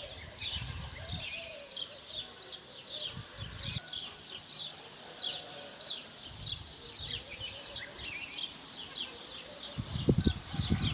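Many small birds chirping, a continuous chatter of quick, short chirps, with a few low bumps near the end.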